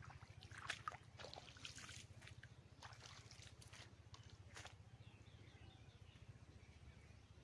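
Quiet outdoor ambience: a steady low hum, with a few short crackles and rustles in the first half and faint chirping later on.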